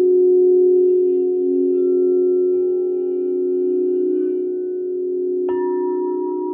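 Crystal singing bowls ringing: several steady, overlapping low tones with a slow wavering beat. About five and a half seconds in, a bowl is struck with the mallet, adding a brighter, higher tone on top.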